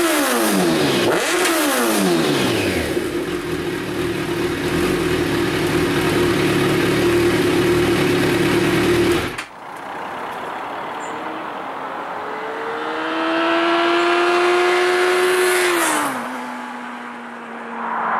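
Kawasaki Z1000 inline-four through an Arrow Race-Tech full exhaust, revved twice and then idling steadily. About halfway through the sound changes abruptly to a vehicle passing at speed on the road, its engine note dropping in pitch as it goes by and then fading.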